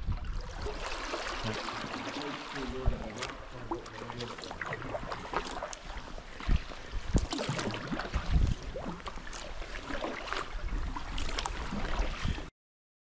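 Sea kayak paddling: paddle blades dipping and splashing at irregular intervals, with water trickling and lapping against the hull. The sound cuts off abruptly near the end.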